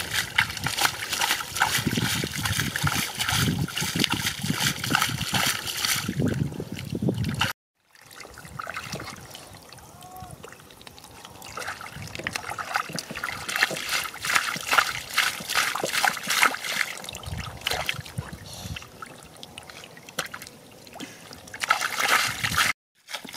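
Shallow water splashing and sloshing in quick, irregular splashes. It is loud for the first seven seconds, breaks off abruptly, comes back quieter, swells again in the middle and near the end, and then cuts off suddenly.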